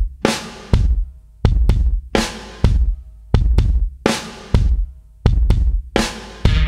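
Background music: a steady drum-kit beat with heavy bass drum and ringing cymbal hits.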